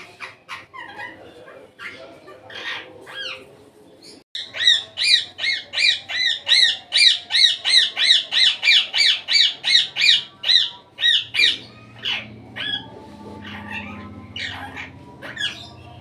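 Indian ringneck parakeet squawking: a few scattered calls, then from about four seconds in a loud, rapid run of repeated calls, about four a second for some six seconds, dropping back to softer occasional calls near the end.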